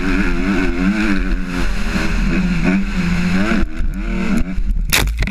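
Dirt bike engine revving hard as it is ridden along a motocross track, its pitch rising and falling with the throttle and gear changes. About three and a half seconds in, the engine note drops away, and a short sharp noise follows near the end.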